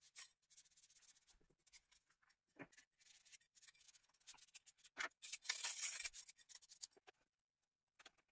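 Faint rubbing and scratching of a cloth wiping a Nokia 1610 phone's plastic housing, in short irregular strokes, with a louder stretch of brisk rubbing about five seconds in.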